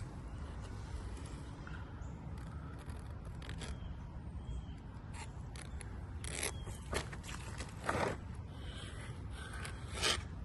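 A caulk spreader scraping along a bead of fresh caulk in short strokes, with a few sharper scrapes between about six and ten seconds in, over a low steady rumble.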